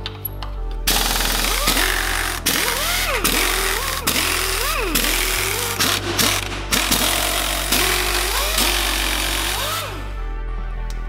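Impact wrench hammering in long bursts with short breaks, undoing rusted bolts; background music plays under it.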